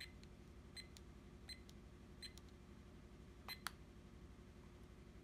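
AcuRite digital timer's buttons being pressed, each press giving a short high electronic beep and a soft click. Five faint presses, the first four about three-quarters of a second apart; the last, about three and a half seconds in, has the loudest click.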